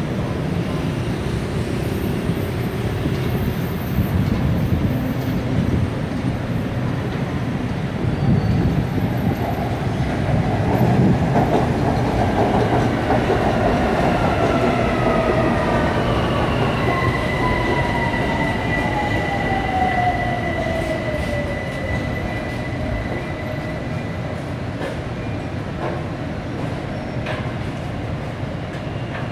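A BTS Skytrain electric train pulls into an elevated station and slows to a stop. Its wheels rumble on the track, loudest about halfway through as it passes. A whine falls steadily in pitch as the train brakes, and a steady high tone holds on through the last third.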